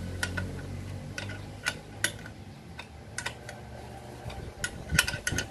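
Scattered sharp metallic clicks and taps as a motorcycle horn and its mounting bracket are handled and fitted against the steel front frame of a Yamaha NMAX scooter, with a quick run of clicks about five seconds in.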